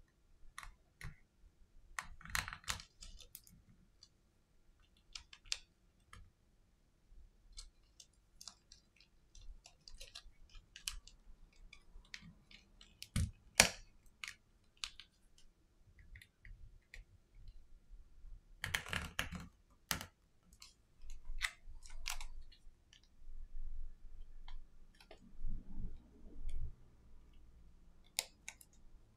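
Scattered small clicks, taps and scrapes of a spudger tip and fingertips working on the opened Xiaomi Redmi Note 10 5G's internal parts, coming in irregular clusters with one sharper click about halfway. Near the end there is a low rustle of the phone being handled and lifted.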